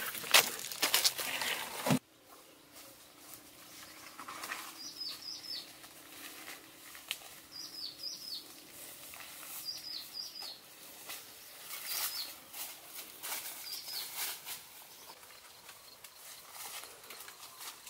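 Rubber-booted footsteps crunching on dry leaves and twigs for the first two seconds, then softer steps and rustling through grass. Over them a bird calls again and again with short downward-sliding chirps, mostly in pairs, about every two seconds.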